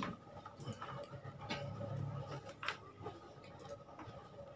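Small plastic toy pieces clicking and tapping together as they are handled, in scattered light knocks with a few sharper clicks.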